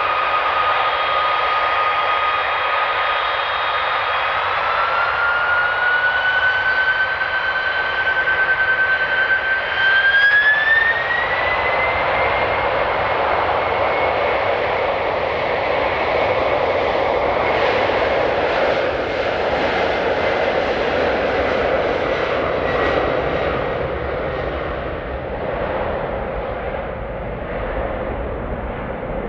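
Boeing 767 jet engines spooling up to takeoff power: a steady whine that rises in pitch in two steps over the first dozen seconds, then a broad jet roar as the airliner runs down the runway and lifts off.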